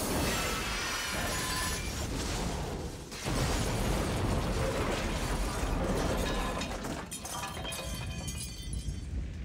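Film sound effects of a helicopter caught on a live power line: electrical sparking and crackling, then about three seconds in a large explosion with flying debris, which thins out into crackling near the end.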